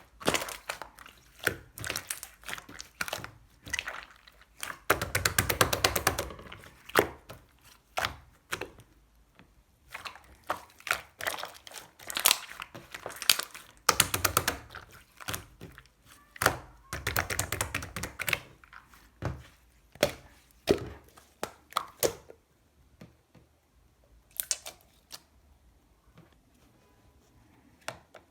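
Slime squished and pressed by hand, making sticky clicks and runs of rapid popping as trapped air bubbles burst. It quiets to a few faint clicks near the end.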